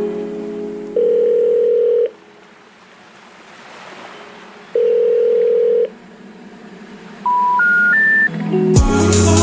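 Background music: two long steady tones, then three short beeps stepping up in pitch, then a beat with deep bass coming in near the end.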